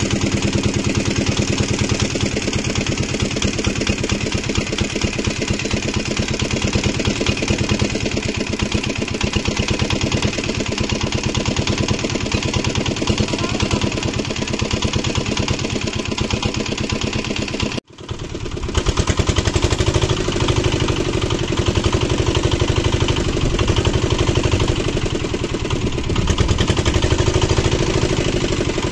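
An engine running steadily with a fast, even firing beat. The sound cuts out abruptly for a moment about two thirds of the way through, then returns at the same level.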